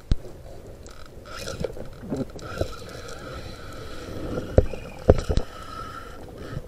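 Underwater sound picked up through an action camera's housing: a muffled wash of water noise with a faint steady whine, broken by sharp knocks at the start and three more between about four and a half and five and a half seconds in.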